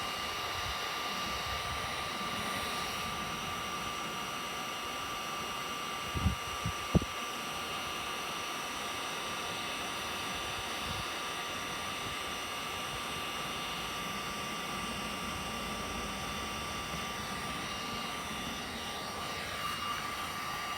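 Electric heat gun running steadily: an even fan rush with a high, steady whine. A few brief knocks sound about six to seven seconds in.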